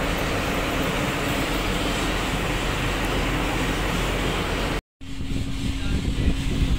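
Steady machinery drone aboard a tanker ship, a dense noise with a low rumble. About three quarters of the way through it drops out for a split second, and a quieter steady hum with one held tone follows.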